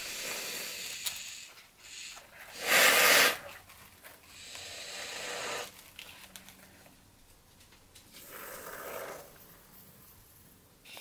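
Aerosol can of polyurethane expanding foam spraying in several hissing spurts of different lengths, the loudest about three seconds in, as foam is squirted into gaps.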